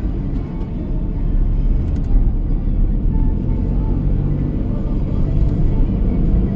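A car driving: engine and road noise as a steady low rumble, with a few faint ticks.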